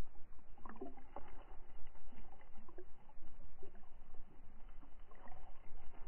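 Muffled water noise heard from a submerged camera: a steady low rumble with a few faint knocks and splashy flickers.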